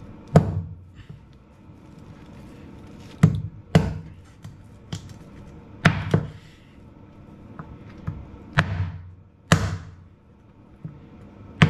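Heavy meat cleaver chopping through bone-in pork on a cutting board: about seven sharp chops at uneven intervals, some in quick pairs.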